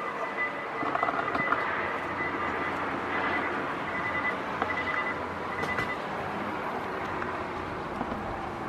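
Steady outdoor background noise, a constant hiss with a faint high tone that comes and goes and a few small clicks.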